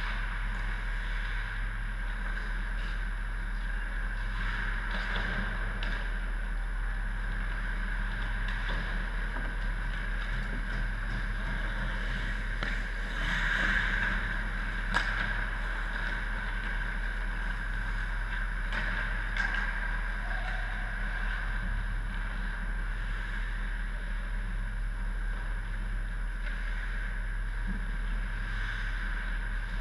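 Steady hum and hiss of an indoor ice rink, with faint scattered clicks of sticks and pucks in the distance. About halfway through, a louder skating scrape swells up near the goal, followed by a single sharp crack.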